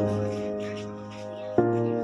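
Background music with sustained, held chords that change about every second and a half.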